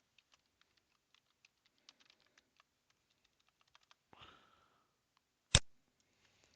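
Faint computer keyboard typing, a run of quick light keystrokes for about four seconds. A short breathy noise follows, then one sharp, much louder click near the end.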